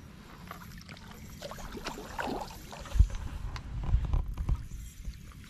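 A hooked trout splashing and stirring the water at the surface as it is played in toward the bank, with heavy low thumps about three and four seconds in.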